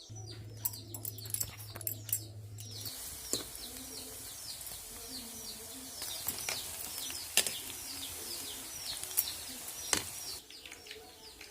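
Small birds chirping over and over in short, falling chirps, several a second. A low hum runs under the first few seconds, then a steady hiss with scattered sharp clicks until near the end.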